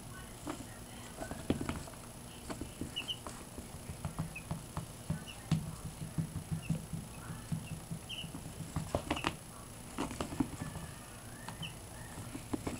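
Young chicks peeping now and then, short high cheeps, among scattered soft taps and rustles on a rug.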